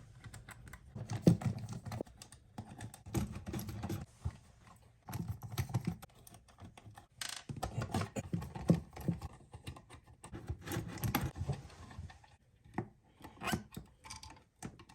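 Handling noises from work on a wall light switch: irregular clicks, scrapes and rubbing of plastic and metal, in bunches every second or two, with a brief lull near the end.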